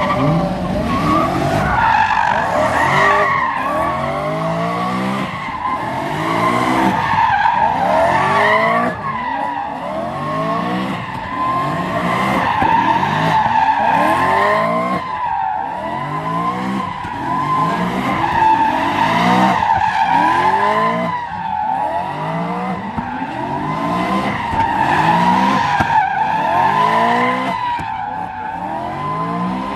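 A car spinning its tyres in a long slide. The tyre squeal holds steady while the engine revs rise and fall over and over, about once every second and a half.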